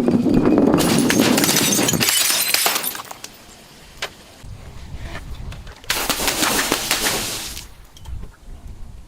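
A glass bottle being crushed, crunching and cracking in two loud stretches of dense crackling, the first about three seconds long and the second starting about six seconds in and lasting about a second and a half, with scattered small cracks between them.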